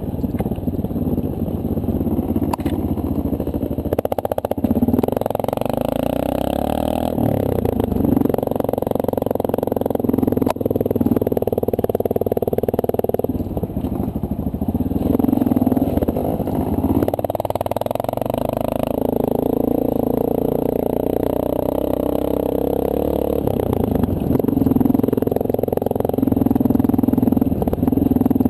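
Honda CRF230L dual-sport motorcycle's single-cylinder four-stroke engine running while riding a dirt trail, heard from a camera mounted on the bike. Its pitch rises and falls every few seconds as the throttle opens and closes and the gears change.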